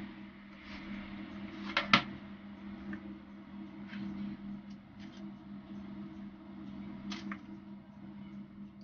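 Kitchen knife cutting through a log of biscuit dough and tapping on the countertop: scattered short taps, the loudest a pair of sharp ones about two seconds in. A steady low appliance hum runs underneath.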